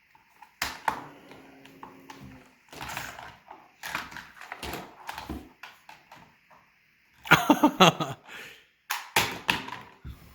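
Hard plastic puzzle-toy dinosaurs knocking and clattering together in play-fighting, a run of irregular sharp clacks. About seven seconds in comes a short, loud burst of a child's voice.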